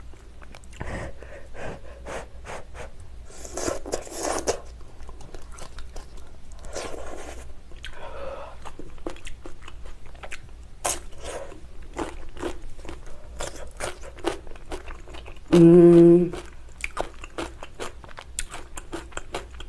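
Close-miked eating: slurping noodles and hot malatang broth, then crunching and chewing kimchi, with many small wet mouth clicks throughout. A short loud hum of the voice about three-quarters of the way through.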